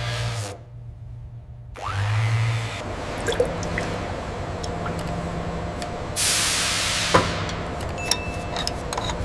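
Fluid pouring through a funnel into a plastic reservoir, with trickling, drips and a few small clicks. A polisher motor's low hum cuts off in the first second.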